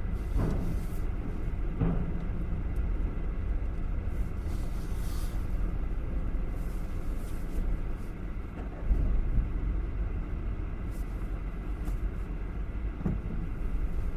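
Steady low rumble of a car ferry's engines, with a few faint knocks.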